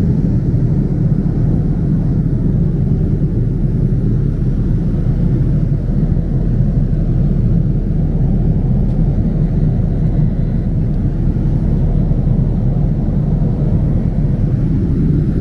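Steady low rumble of an airliner cabin in flight, from engine and airflow noise.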